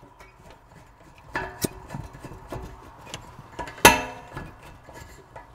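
Metal clicks and clinks of a brass propane pigtail fitting being threaded on and hand-tightened at an RV's LP cylinder, with one sharp ringing metallic clink near the four-second mark.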